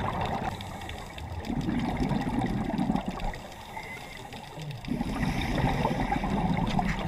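Underwater bubbling from a scuba diver's regulator, two long gurgling bursts of exhaled bubbles with a quieter stretch between.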